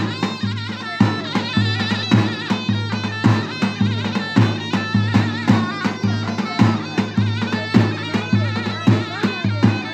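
Davul and zurna playing a bar dance tune: the shrill zurna carries a wavering, ornamented melody over heavy, regular strokes of the big davul drum, about two a second. The drum comes in sharply at the very start.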